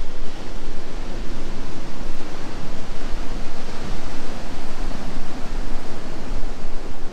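Steady rushing noise of wind buffeting the microphone, mixed with the surf of waves breaking on the shore.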